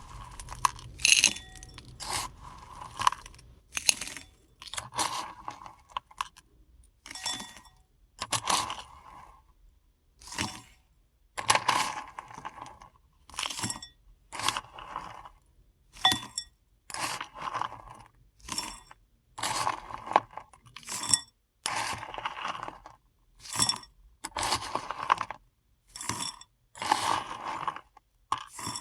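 Paradichlorobenzene mothball tablets being dropped in, clattering and crunching in short separate bursts about once a second, some louder than others.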